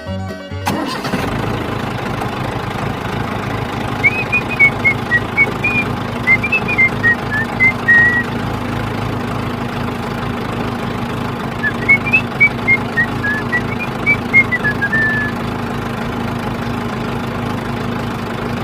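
A small motor hums steadily with one constant low tone. Twice over it comes a short run of high whistled notes, rising and then falling over a few seconds.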